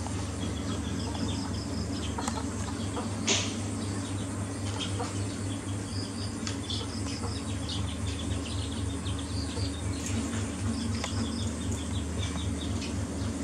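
Repeated short high chirps in little runs, from small animals such as birds or insects, over a steady low hum, with a couple of faint clicks about two and three seconds in.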